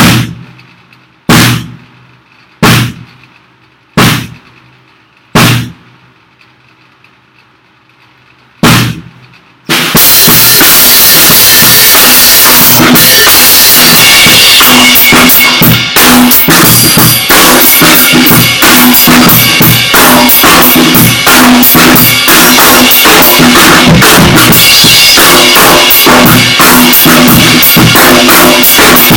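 Drum kit, loud: first a handful of single strokes about a second and a half apart, each ringing out, then about ten seconds in a full, dense beat starts and runs on with drums and cymbals together.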